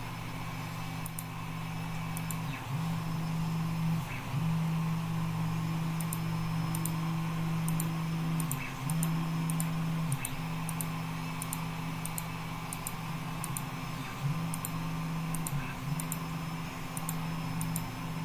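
Computer mouse clicking, many short sharp clicks spaced irregularly, sometimes two within a second, over a steady low hum that drops out for a moment now and then.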